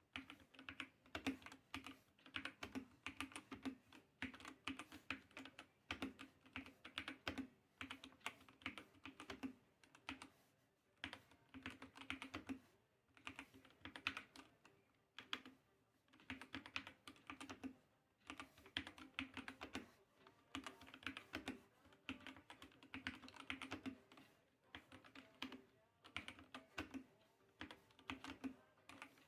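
Aqirys Mira mechanical keyboard with Outemu Red linear switches being typed on: quick runs of key clicks and clacks, broken by short pauses every couple of seconds.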